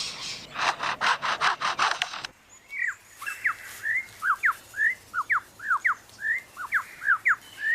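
Superb lyrebird imitating a chainsaw: a quick run of rasping strokes, about five a second. About two seconds in it gives way abruptly to a bird's rapid series of whistled notes, most sweeping downward, two or three a second.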